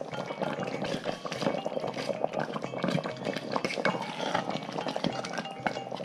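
A wooden spoon stirring chicken pieces in a thick sauce in a stainless-steel pot, with scraping against the pot and many short clicks and clinks, some from a metal spoon knocking on the pot.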